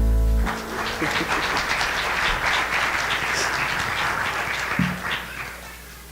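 The congregation applauds after the song's final chord cuts off about half a second in, then the clapping fades out a little after five seconds.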